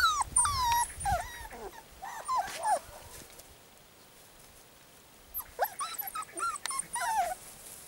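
Young puppies, about four and a half weeks old, whining and yelping in short high-pitched cries: a flurry in the first three seconds, a quieter pause, then another run of cries near the end.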